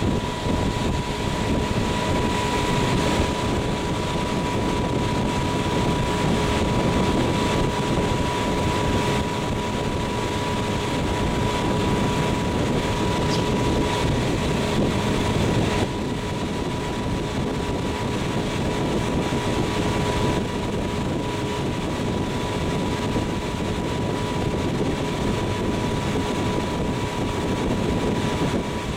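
Motorboat engine running steadily under way, with the rush of wind and water, a steady hum running through it.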